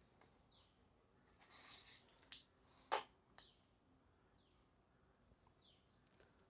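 Near silence with a few faint clicks and a brief rustle as meter test probes are put to the leads of a bi-metal defrost thermostat; no continuity beep sounds, since the thermostat is open at room temperature.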